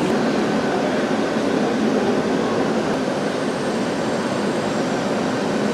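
Steady rushing noise from a standing steam-hauled vintage train.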